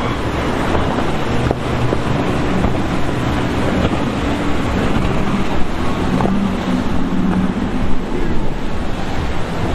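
Boat engines running through waves and wake, with wind buffeting the microphone. A low engine tone grows stronger about six to eight seconds in.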